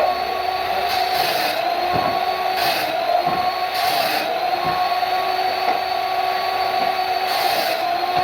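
Electric motor of a woodworking power tool running at a steady high speed, a constant whine with four short bursts of hiss over it.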